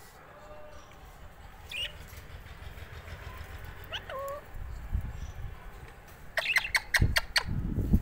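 Alexandrine parakeet giving a couple of short, separate calls, then a fast run of about six sharp, clicky calls near the end. A low rumble rises underneath in the last seconds.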